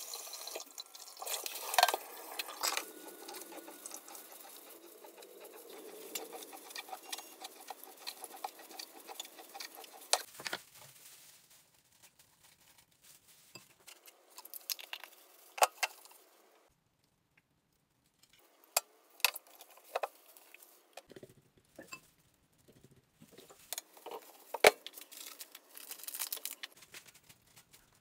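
Water running from a kitchen tap while raw chicken wings are rinsed by hand in a bowl, then scattered sharp clinks and taps of a spoon against a small ceramic bowl as a sauce is mixed.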